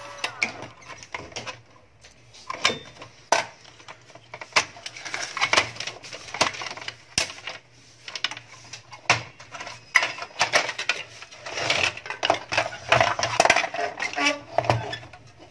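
Plastic casing and parts of a UPS being handled and taken apart by hand: an irregular run of clicks, knocks and rattles as the cover comes off and the circuit board is lifted out, busiest in the second half.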